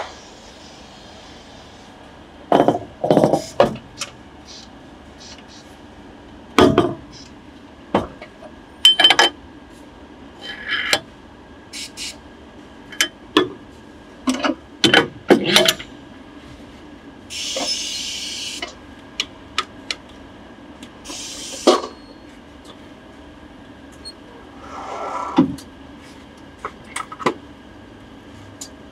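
Tyre-fitting work on an alloy wheel: a string of sharp metal clinks and knocks from tools, wheel and rubber being handled, with two short blasts of hissing compressed air past the middle and a longer rushing burst near the end.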